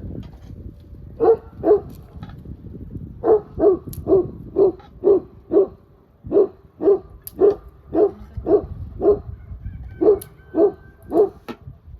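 A dog barking over and over, about two barks a second in a long run of some seventeen barks, over a low rumble.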